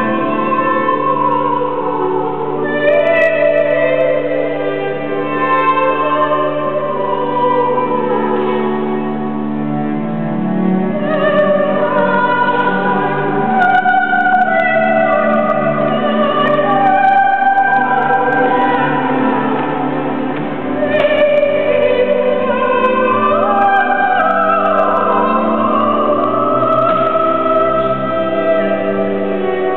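A woman singing a classical solo in operatic style, her voice wavering with vibrato, accompanied by a string orchestra playing held notes beneath her.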